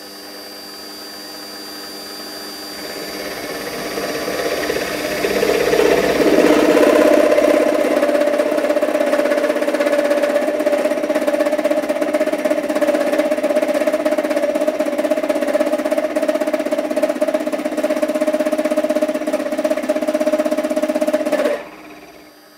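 Warco WM180 bench lathe spinning a 1-inch end mill at about 1,000 rpm, fed slowly into aluminium plate. The cut builds up over the first six seconds into a loud, steady ringing tone, the chatter of a setup that isn't rigid enough. It drops away suddenly about a second before the end.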